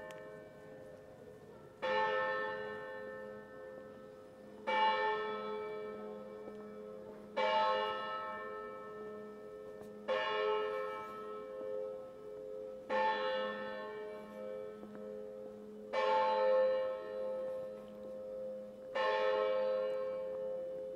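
Basel Minster's church bell striking the hour at noon: single strokes about every three seconds, seven in all here, each ringing out and slowly fading.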